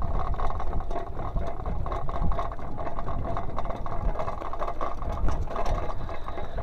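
Mountain bike riding down a dirt single-track: a steady rumble of wind buffeting the handlebar-mounted camera's microphone, with continuous rattling and clatter from the bike over the bumpy ground.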